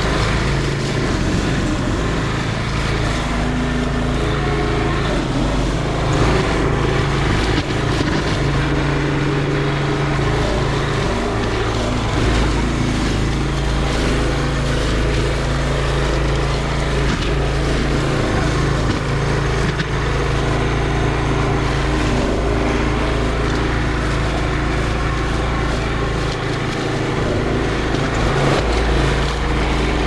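Walk-behind brush mower's small engine running steadily under load as the deck chops through thick weeds and brush.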